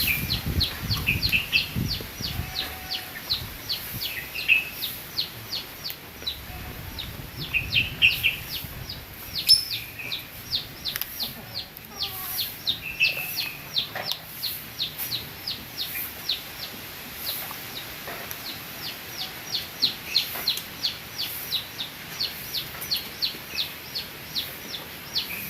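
Chickens clucking while a small bird chirps on and off in quick high runs, about four chirps a second. Wind rumbles on the microphone in the first couple of seconds.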